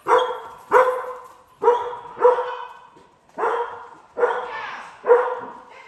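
Sable-and-white collie-type dog barking repeatedly while running an agility course, about seven sharp barks at an uneven pace.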